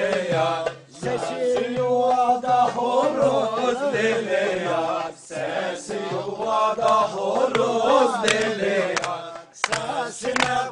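Elazığ-style Turkish folk dance music (oyun havası): a wavering melodic line over a steady low drone, with short breaks about a second in, around five seconds and near the end.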